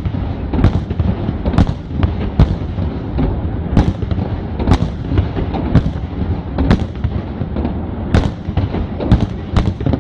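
Aerial fireworks shells bursting in a display: about ten sharp bangs at irregular intervals over a continuous low rumble of further bursts.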